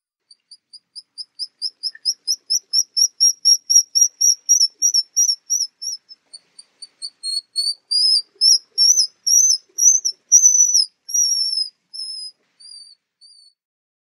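Black guillemot (Cepphus grylle) giving its high, thin whistling call. A run of short peeps speeds up and grows louder over the first six seconds. A second run of longer, wavering whistles follows and fades out near the end.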